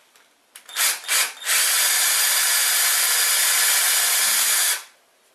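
Cordless drill drilling a pilot hole into MDF: two short blips of the trigger, then a steady run of about three seconds that stops suddenly.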